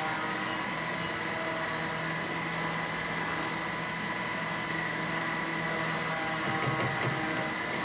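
Southwest Trak CNC bed mill running with a steady machine hum and whine as its cross-slide axis is driven under power. A lower hum drops out about six seconds in.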